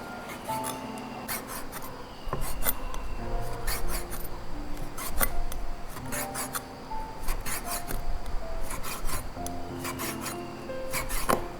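Repeated rasping, scraping strokes, roughly one a second, of something being scraped or rubbed by hand, over soft background music.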